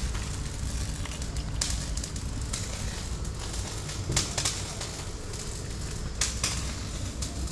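Close handling noise: a few sharp clicks over a low, steady rumble.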